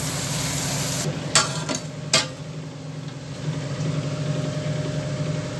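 Meen kulambu (fish curry) at a full boil in a clay pot, bubbling, with a steady low hum underneath. About one and a half to two seconds in, the steel plate lid clinks three times as it is lifted off.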